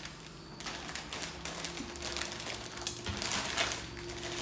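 Crinkly plastic snack packet rustling and crackling as a monkey handles it and pulls at it with its mouth, in irregular bursts starting about half a second in.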